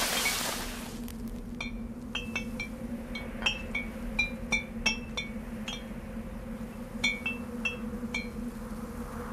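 Glass bottles and cans hanging from tree branches clink against each other in irregular light chinks, each ringing briefly, over a low steady drone. A rushing noise fades out about a second in.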